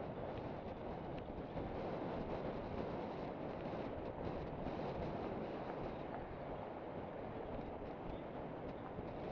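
Steady wind noise buffeting a bike-mounted camera's microphone, mixed with the rumble of mountain bike tyres rolling over a gravel fire road.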